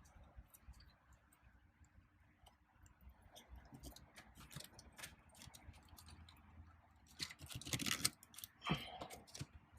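Faint scattered clicks and rattles of hands working plastic trim and wiring connectors in a car's steering column, pulling a part loose, with a louder run of clicking about seven to eight seconds in.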